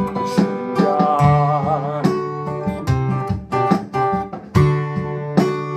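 Acoustic guitar played alone in an instrumental break of a folk song, a run of picked and strummed notes with low bass notes left ringing.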